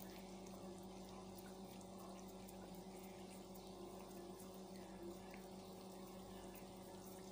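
Faint, steady sizzling of kachoris deep-frying in oil in a karahi on a low flame, over a low steady hum.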